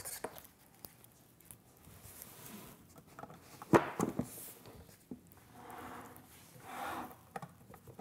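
Gloved hands plugging light-head cable connectors into the plastic output sockets of a luminaire's electrical box: small clicks and handling noise, with one sharp click about four seconds in as a plug seats, then cable and glove rustling.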